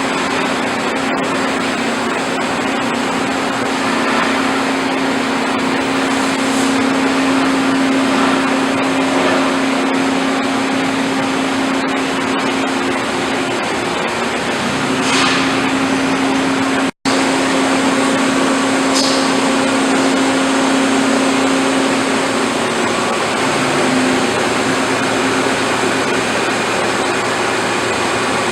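Racer HB-110CB CNC horizontal boring mill running: a steady mechanical whir with a held low hum that shifts slightly in pitch about halfway through and fades out about three quarters of the way in. There is a split-second gap in the sound a little past the middle.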